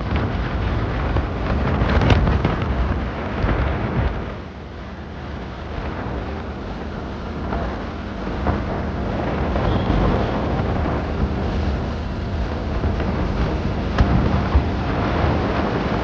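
Wind buffeting the microphone of a moving motorcycle: a heavy, rumbling rush that swells and eases, mixed with the bike's running and road noise.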